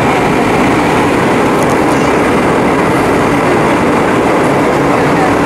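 Steady, loud in-flight cabin noise of an Airbus A320: its IAE V2500 turbofan engine and the airflow over the fuselage, heard from a window seat.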